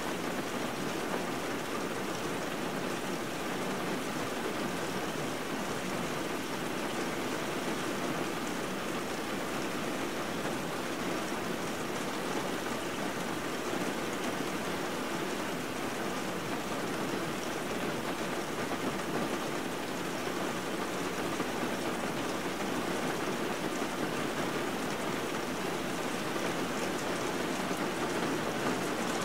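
Steady rain, an even hiss with no breaks or separate events.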